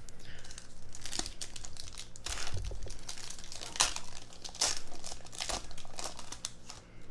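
Topps Chrome trading-card pack wrapper being torn open and crinkled by hand, an irregular run of crackling rustles, the sharpest about four seconds in.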